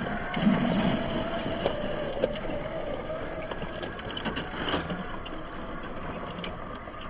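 Small electric motor and gearbox of a 1:16 scale RC truck running with a steady whine, along with scattered small clicks and knocks.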